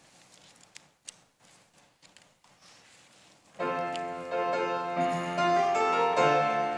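Faint rustling and a few soft clicks. About three and a half seconds in, a piano starts playing chords, the introduction to the choir's anthem.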